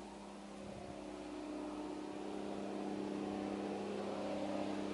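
Regional passenger multiple-unit train approaching on the tracks: a steady hum with two held low tones that grows gradually louder.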